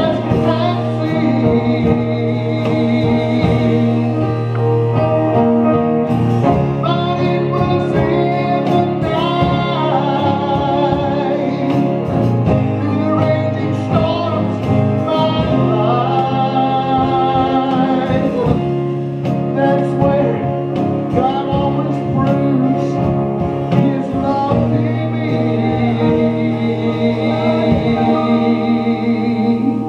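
Live gospel group singing, with acoustic guitar accompaniment.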